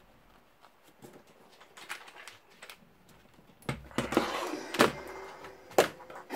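A plastic computer keyboard slid across a wooden desk and set down, with a scraping rustle and two sharp knocks near the end; a few faint clicks before it.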